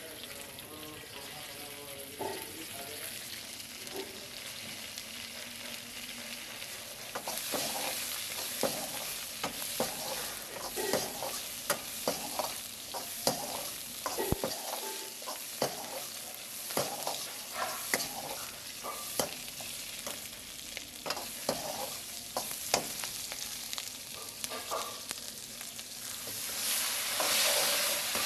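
Onion, green capsicum and garlic stir-frying in hot oil in a wok: a steady sizzle, with a steel ladle scraping and clanking against the wok over and over. The sizzle gets brighter about a quarter of the way in and swells louder near the end.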